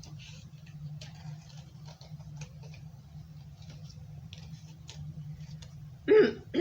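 Scissors cutting thin cardstock: faint, irregular snips and paper rustles over a steady low hum. Just before the end comes a brief loud pitched sound, a voice or animal call.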